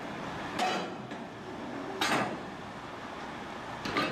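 Three sharp metal clanks, each ringing briefly, from the steel loading ramp and linkage gear of a car ferry being worked by crew, over steady background noise.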